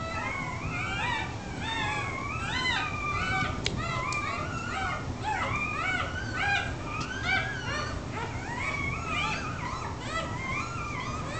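A litter of newborn beagle puppies squealing and whimpering: many thin, high-pitched cries overlapping without pause, each rising and falling, as the puppies are put to the mother's teats to nurse.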